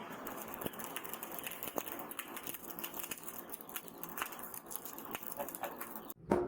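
Light, irregular clicking and tapping, several a second, over a steady hiss, then a louder hammer blow on metal right at the end.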